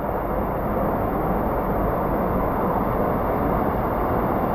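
Artificial waterfall pouring into a lazy river: a steady rush of falling and splashing water.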